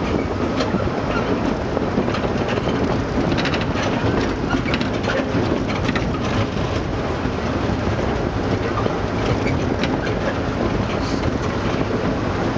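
Small amusement-park ride train running on narrow-gauge track: a steady rumble and rattle of its wheels on the rails, with scattered sharp clicks.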